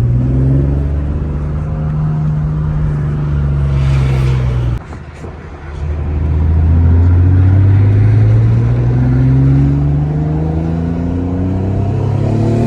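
Twin-turbocharged Infiniti G35's 3.5-litre V6 accelerating hard: the engine note climbs steadily for about five seconds, breaks off with a short hiss and a dip at a gear change, then climbs again in the next gear, with another shift about ten seconds in.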